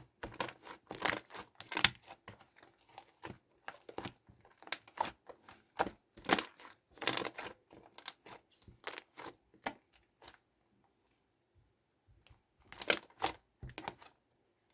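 Slime being squeezed and mixed by hand on a wooden board, giving a rapid run of sticky crackling pops and clicks. The crackling stops for about two seconds, then returns in a short loud flurry near the end.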